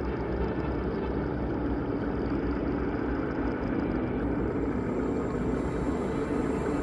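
Low, steady rumbling drone of dark horror ambience, with a few faint held tones over it and no pauses.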